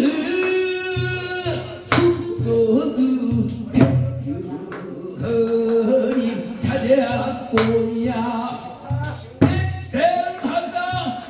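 Male singer singing a Korean folk song in the pansori style, with held, bending notes through a microphone and PA, accompanied by strokes on a buk barrel drum.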